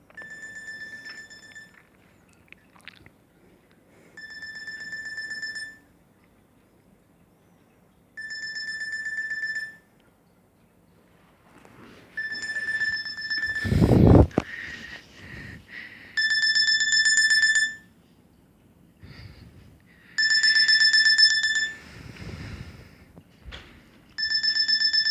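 A Nokia 6300 mobile phone plays a beeping ringtone. A rapid trilled electronic beep lasts about a second and a half and repeats every four seconds, growing louder with each repeat. One loud thump comes about fourteen seconds in.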